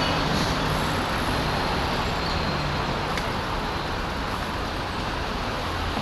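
Steady road traffic noise, with motor vehicles running along the road.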